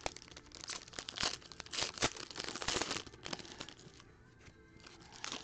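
Foil wrapper of a football trading-card pack crinkling and tearing as it is pulled open by hand, crackly and busy for about three seconds, then quieter rustling.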